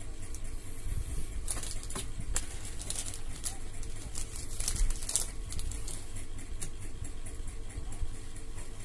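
Thin plastic parts bags crinkling and rustling in the hands in irregular bursts, over a steady low hum.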